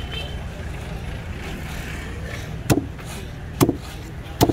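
A large curved knife chopping through a trevally onto a wooden board: three sharp strikes about a second apart in the second half, over a steady low background rumble.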